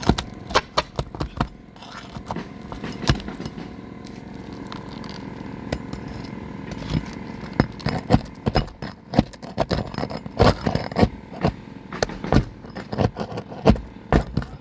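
A metal roof snake worked under asphalt shingles to free their nails: a run of sharp metallic taps and scrapes, in a cluster in the first second or so and then frequent taps through the second half.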